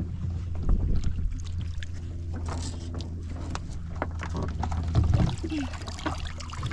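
Wire crab trap hauled up by its rope out of the water, with water splashing and streaming off the mesh and scattered light clicks, over a steady low hum.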